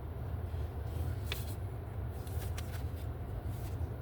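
Steady low rumble, with a few faint clicks and rustles from the falling-apart oracle guidebook being handled.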